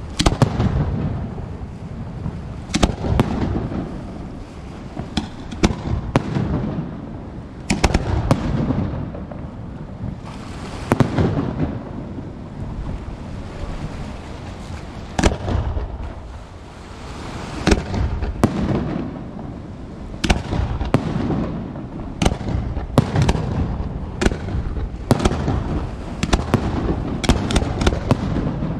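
Aerial fireworks shells bursting one after another at irregular intervals: sharp bangs with a low rolling rumble between them, the bangs coming thicker in the last several seconds.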